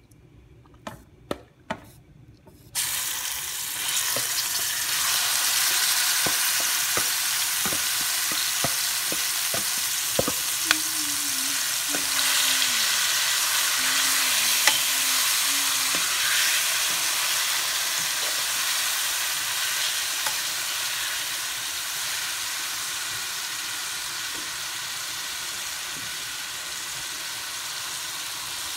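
Seasoned chicken pieces hitting hot oil and toasted curry powder in a pot: after a few knocks, a loud frying sizzle starts about three seconds in and eases slowly toward the end, with a metal utensil clinking as the chicken is stirred.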